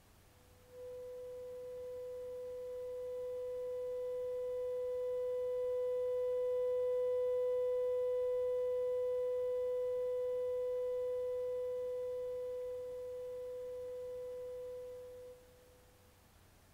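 A 500 Hz sine test tone heard through a Bugera V22 guitar amplifier's effects send with the reverb off, carrying faint higher overtones. It comes in about a second in, slowly swells louder and then softer, and cuts off near the end.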